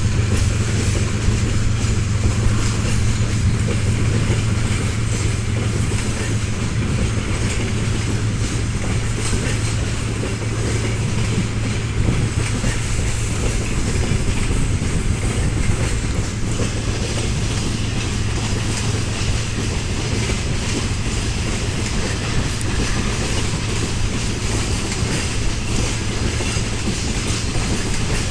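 Freight train rolling past, its wagon wheels clattering over the rail joints, with a steady low hum that weakens after about ten seconds.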